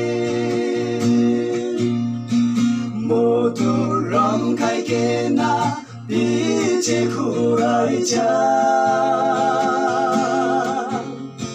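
A song sung with instrumental accompaniment; about two-thirds of the way through, the voice holds one long note with vibrato.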